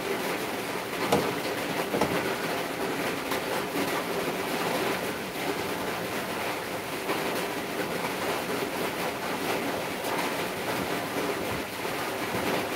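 Steady rushing background noise, with faint scratchy ticks of a paintbrush being stroked over wood.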